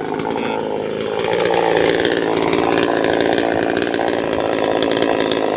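Top-handle chainsaw running at high revs while cutting into a teak tree root, its engine note wavering under the load of the cut.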